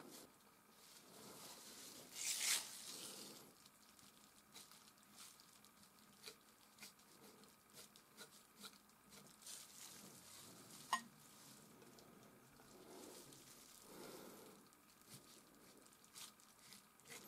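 Palette knife working thick oil paint: faint, scattered taps and scrapes, with a louder scrape about two and a half seconds in and a sharp click near eleven seconds.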